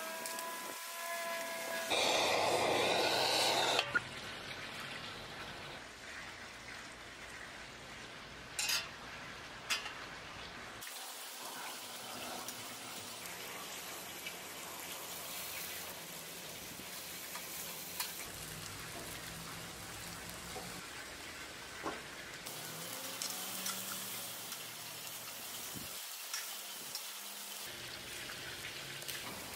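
Meat sizzling on a small stainless steel charcoal grill: a steady hiss. About two seconds in there is a louder rushing noise for about two seconds, and a couple of sharp clicks come around nine seconds in.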